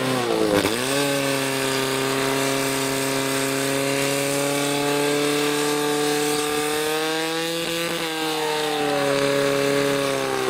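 Portable fire pump's engine running hard at high revs while it drives water through the charged hoses. Its pitch dips briefly right at the start, then holds steady, climbs a little about seven to eight seconds in and falls back near the end.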